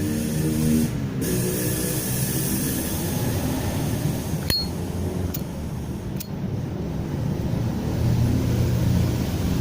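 Three sharp metallic clicks about a second apart from a Zippo lighter being worked to light it, over a steady low background rumble. The lighter is filled with Pertalite petrol and has not yet caught, which the owner puts down to the fuel not yet being evenly soaked through.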